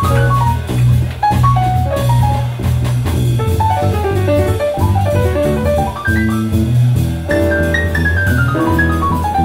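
Live jazz-fusion band playing an instrumental passage on bass, drums and keys: quick runs of notes sweep up and down over a steady bass line, ending in a long falling run.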